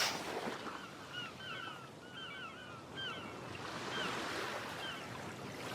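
Seashore ambience: a steady wash of surf with short seabird calls repeating over it. A brief knock sounds right at the start.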